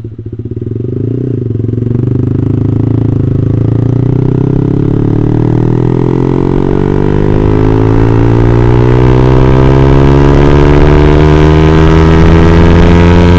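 Yamaha R15 V3's single-cylinder engine through an R9 GP-series aftermarket exhaust, ridden under acceleration. The note dips at the start, then climbs steadily in pitch and loudness for about ten seconds as the revs build.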